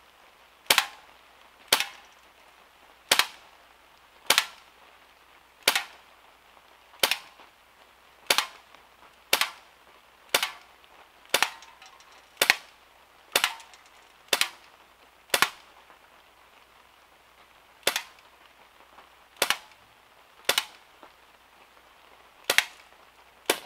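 Semi-automatic 4.5 mm steel BB pistol fired about nineteen times in a row, one sharp crack roughly every second, with one longer pause a little past halfway, emptying the magazine.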